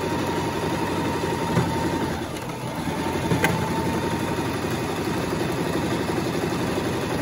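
Singer electric sewing machine running steadily, stitching through two layers of fabric and a thin elastic hair tie, with a single sharp click a little past halfway.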